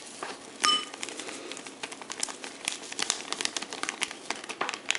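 Plastic sachet of ground black pepper crinkling and crackling in irregular ticks as it is shaken over a ceramic bowl, with one short clink about half a second in.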